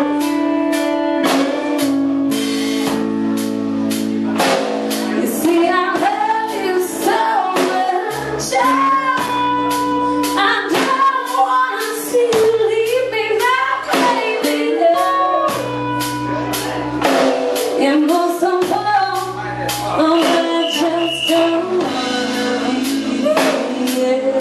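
Live blues-rock band: a woman singing with a wavering, held voice over electric guitar and a steady drum beat.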